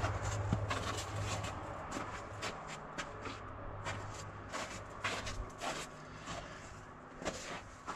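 Rustling and scattered light clicks of people moving and handling things around an engine bay, over a low steady hum that fades during the first few seconds.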